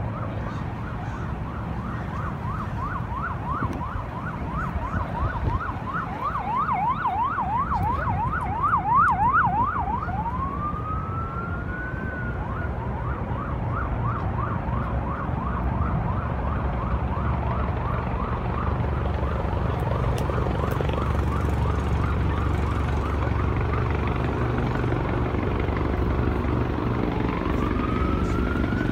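Emergency vehicle siren sounding across the city, mostly in rapid up-and-down yelp, speeding up for a few seconds, then switching to a rising wail about ten seconds in and again near the end. A low steady rumble runs underneath and grows louder in the second half.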